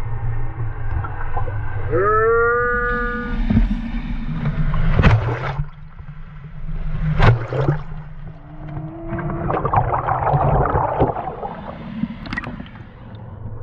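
Surf and churning water washing around a camera held at the waterline, a steady low rumble with sharp splashes hitting the housing about five, seven and twelve seconds in. About two seconds in comes a pitched call that rises and then holds, and a shorter rising tone follows near eight seconds.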